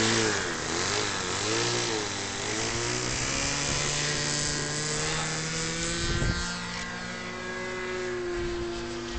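Model aircraft engine droning in flight, its pitch wavering up and down for the first couple of seconds, then holding steadier and a little fainter.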